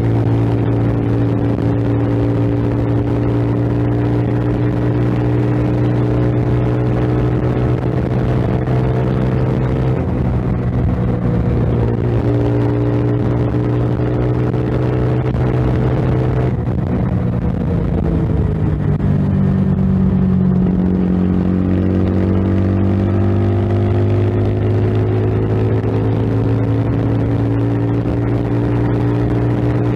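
Kreidler Dice CR 125i motorcycle engine running at a steady pitch. About two thirds of the way through it falls in pitch, then climbs back up and settles.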